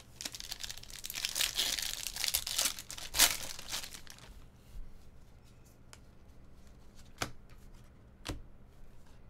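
Shiny wrapper of a Bowman Draft trading-card pack being torn open and crinkled for about four seconds, loudest near the end of the tearing. After that come a few faint clicks as the cards are handled.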